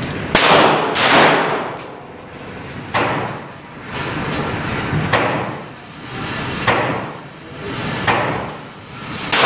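Gunshots echoing through an indoor shooting range: about six sharp reports at irregular intervals, each trailing off in a long reverberant ring off the concrete lanes.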